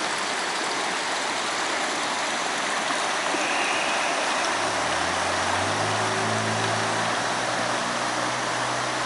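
Floodwater of the Great Egg Harbor River rushing, a steady dense roar of moving water from the river running well over its banks. About halfway through, a low engine hum, likely a passing motor vehicle, joins in under the water.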